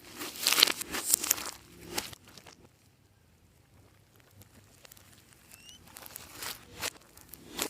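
Clear slime being squeezed and worked by hand: a dense run of sticky crackling and popping for about two seconds, a quiet stretch, then a few separate pops near the end.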